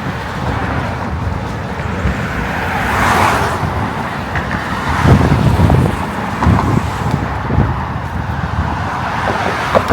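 Road traffic going by, with a car passing about three seconds in, heard from a moving electric bike, with low rumbling buffets of wind on the microphone in the middle.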